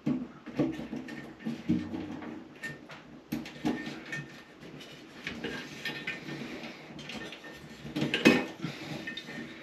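Irregular light clicks, taps and clatter of hands working electrical wires and connectors into place, with a sharper knock a little after eight seconds in.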